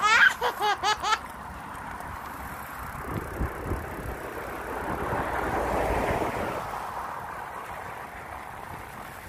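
A short breathless laugh of about five quick notes, then a car going past, its noise swelling for a few seconds and fading away, over steady street noise.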